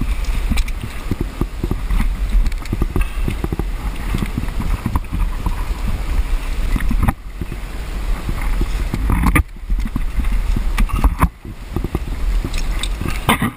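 Wind buffeting a head-mounted camera's microphone as a low rumble, with irregular scuffs, knocks and clatter from a climber moving hands and body against the rock face; the rumble briefly drops out three times.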